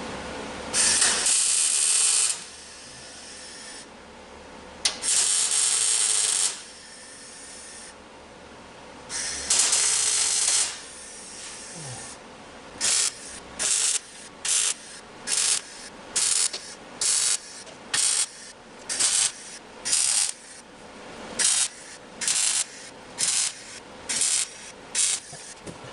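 Welding sheet metal for a truck floor pan: three short weld runs of a second or two each, then a steady series of about twenty quick stitch-weld pulses, roughly two a second, each a brief crackling hiss that starts and stops sharply.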